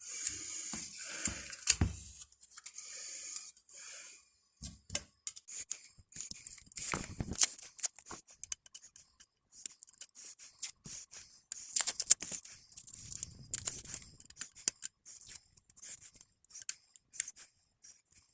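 Paint overspray being scraped off a metal pipe wrench with a hand tool: many quick, uneven scratchy strokes.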